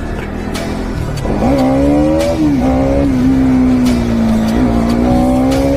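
Bajaj Pulsar NS200's single-cylinder engine and exhaust under load. About a second in the revs climb sharply, then hold high with several short dips and recoveries in pitch as it is shifted through the gears.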